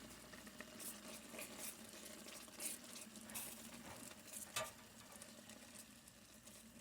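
Faint cooking sounds: a scattering of light clicks and scrapes of a utensil working in a pan, over a low steady hum.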